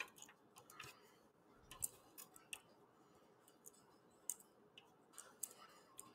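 Faint, irregular clicks and ticks of a screwdriver working screws out of the metal chassis of a Pioneer dual cassette deck being taken apart.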